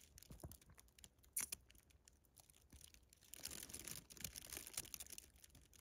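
Near silence: faint rustling and scattered light clicks as someone shifts in a tight shelter, with one sharper click about a second and a half in and a longer stretch of soft rustling later on.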